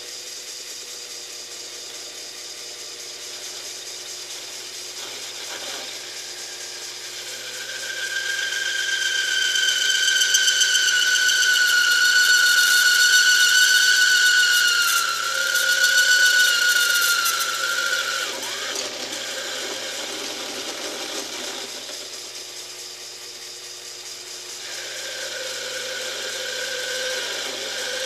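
Taig lathe parting off a thick mild steel bar with a spring parting-off tool, the cut running with a high, steady squealing tone that swells about a third of the way in, lasts about ten seconds, fades, and comes back near the end. The small lathe is labouring at the limit of what it can take for a cut this large.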